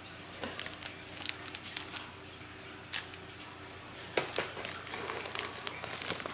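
Crinkle-cut paper shred rustling and crackling as a cat paws through it after a ball toy. The crackles are short and scattered, busier in the second half, over a faint steady hum.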